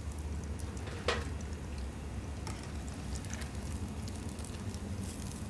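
Hot oil sizzling and bubbling around crumb-coated sushi rolls deep-frying to golden brown in a pan, over a steady low hum. There is a sharp click about a second in and a few fainter clicks later.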